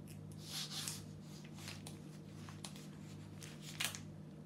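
Soft rustling and light taps of hands handling small toys and plastic containers on a table, with a sharper click near the end, over a faint steady hum.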